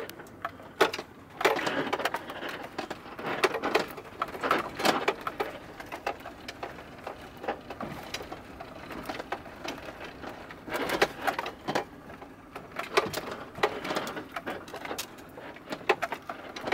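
A camper van rattling and clattering as it drives slowly over a rough, rocky dirt road, heard from inside the cab. Irregular sharp knocks come as the wheels hit rocks and bumps, over a steady rumble of the ride.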